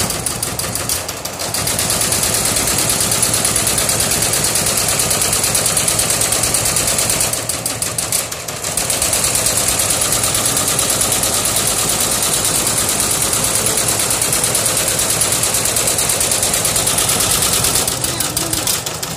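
Multi-head industrial embroidery machine stitching at high speed: a loud, fast, steady clatter of its needles, easing briefly about a second in, around eight seconds in and near the end.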